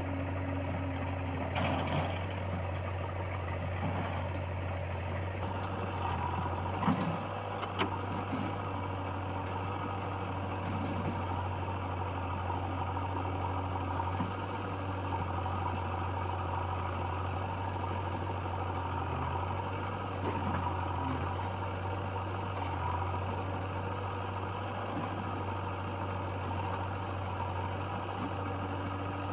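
Diesel engine of heavy machinery running steadily at a low, idle-like pitch, with a few brief knocks about two seconds in and again around seven to eight seconds in.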